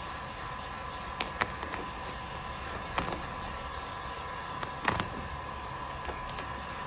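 Heat gun running with a steady whine while brittle, sun-baked vinyl wrap cracks and snaps in a few sharp clicks as it is heated and peeled off the car panel, the loudest snap about five seconds in.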